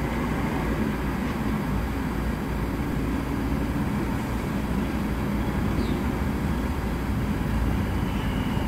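Steady low rumble of a car idling and creeping in heavy traffic, heard from inside the cabin.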